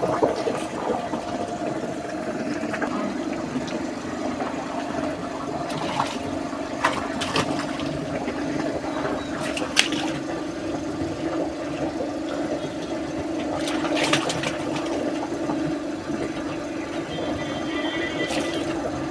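Water rushing and splashing over a steady low hum, with a few sharp knocks.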